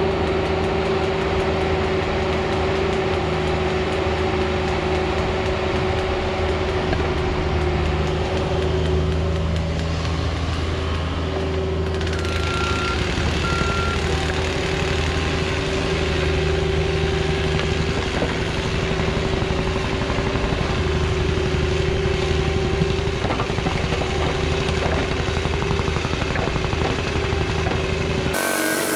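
Cat 304 mini excavator's diesel engine running steadily as it digs a trench. The sound changes abruptly just before the end.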